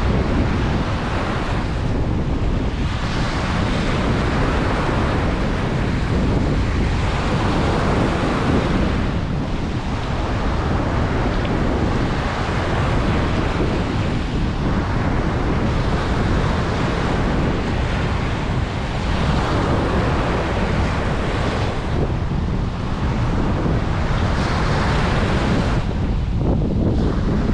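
Ocean surf breaking and washing up on a beach, a continuous rush that swells and falls every few seconds, with a low wind rumble on the microphone.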